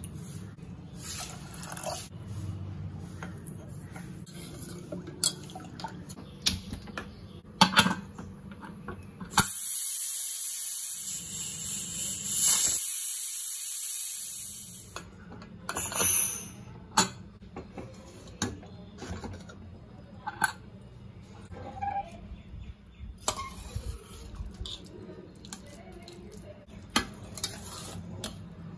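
Water poured into a stainless steel pressure cooker over black rice, with light clinks. Then a loud hiss of steam venting from the pressure cooker for about five seconds. After that come scattered metal clinks and knocks of a steel ladle stirring the cooked rice in the pot.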